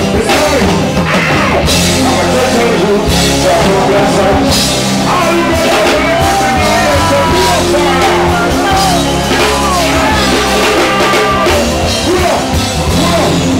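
Live reggae band playing loudly through the PA, with bass, drum kit and guitar under a male vocalist singing into a microphone.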